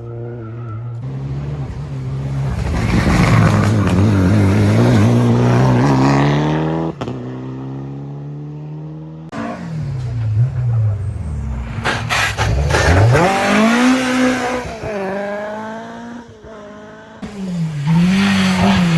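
Rally car engines at full throttle, revving up and dropping through gear changes as the cars pass. Several short clips are joined with abrupt cuts, about a second in, about nine seconds in and again near the end.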